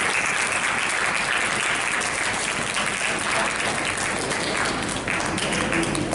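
Audience of students applauding: dense, steady clapping that thins to scattered claps near the end.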